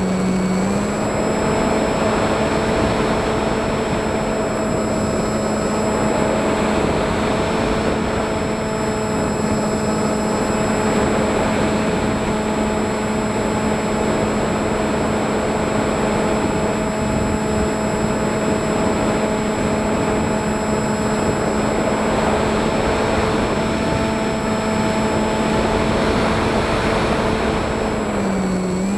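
FPV drone's electric motors and propellers whining at a steady pitch over a rushing noise of propeller wash and wind. The pitch steps up about a second in and dips briefly near the end.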